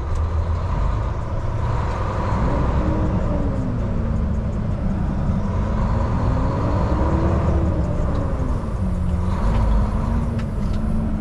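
Volvo semi-truck's diesel engine running, heard from inside the cab as the truck pulls forward and turns, with a steady low rumble and an engine note that rises and falls slowly as the revs change.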